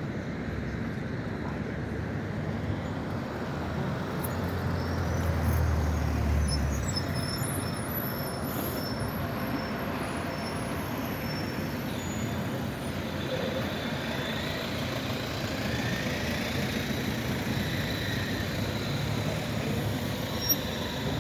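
Street traffic with trams and road vehicles passing: a steady rumble of wheels and engines, with a heavy vehicle's low hum swelling about four to seven seconds in. Thin high-pitched whines drift in and out over it.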